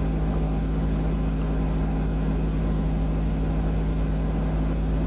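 Car engine running with a steady low drone and an even hum.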